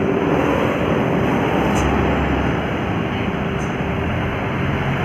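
Heavy road vehicle passing close by on a hill road: a steady engine and tyre rumble, without any horn.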